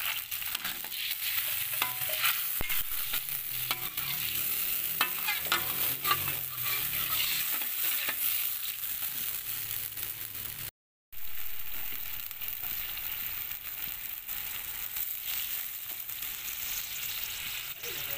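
Sambal sauce sizzling and bubbling in a metal wok, with a metal spatula clicking and scraping against the pan through the first half. The sound cuts out briefly about eleven seconds in, then the sizzle carries on steadily.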